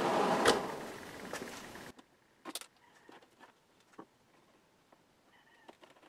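Dehumidifier blower fan running steadily on power fed straight to it through a jumper lead to the hot wire, bypassing the control board that is not sending it voltage. About half a second in there is a click, and the fan sound fades away over about a second and a half as it winds down, followed by a few faint clicks.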